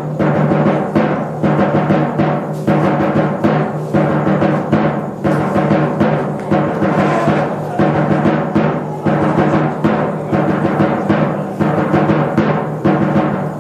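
Live gamelan music: struck bronze metallophones and gongs ringing in sustained tones, with a steady stream of strikes over them.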